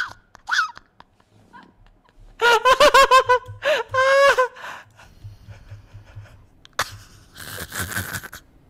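A man laughing hard in bursts: a rapid run of "ha-ha-ha" about two and a half seconds in, then a drawn-out high laugh, and a breathy laugh near the end.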